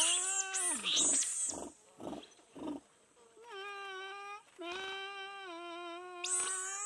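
Giant river otter calling: loud pitched calls with harsh high overtones, a few short huffs, then two longer, steadier calls and another loud call near the end. These calls alert other otters to something of interest, here an approaching canoe.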